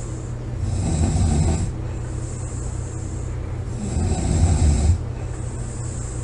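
A woman snoring loudly: two rough, low snores, each about a second long and roughly three and a half seconds apart, with quieter sound between them.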